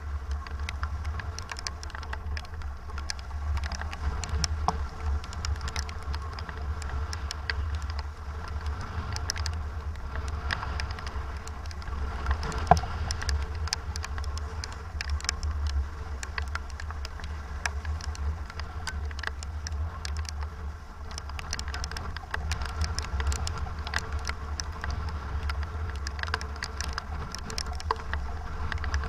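Strong wind buffeting the microphone as a steady low rumble, aboard a sailing boat racing in 25-knot wind and rain, with a constant fine patter of rain and spray. One sharp knock about twelve seconds in.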